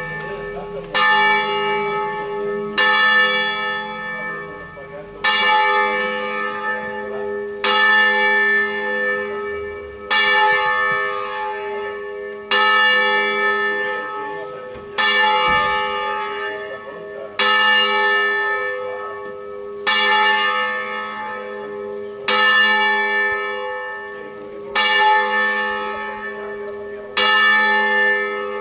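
A single church bell, the second of a five-bell ring hung on the Ambrosian system, swinging full circle in a distesa. It strikes about once every two and a half seconds, a dozen strokes in all, and each stroke rings on into the next.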